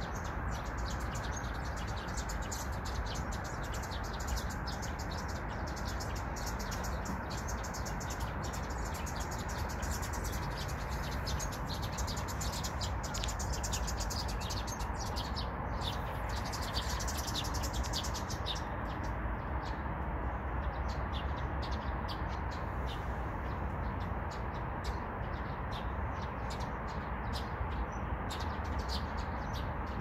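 Small songbirds chirping and twittering in the trees: many short, high calls, thick for the first half and sparser later. A steady low background noise runs underneath.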